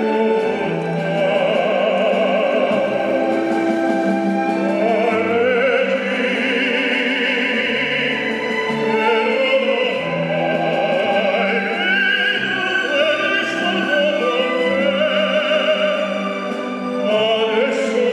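Operatic singing with a wide vibrato over a classical orchestra, continuous throughout.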